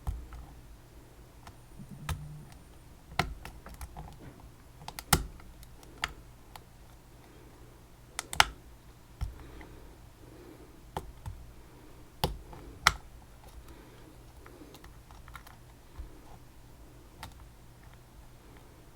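Irregular sharp metallic clicks and taps from a vintage Ving lock and the tools working it, a few louder knocks among them.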